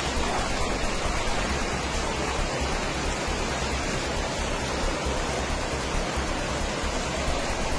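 River in flood after heavy rain, its water rushing with a steady, even noise.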